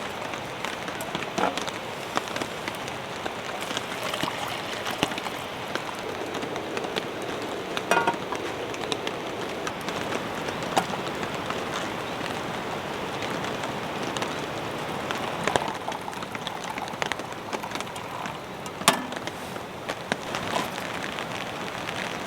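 Steady drizzle falling, with scattered single drops striking now and then, the sharpest about eight, eleven and nineteen seconds in.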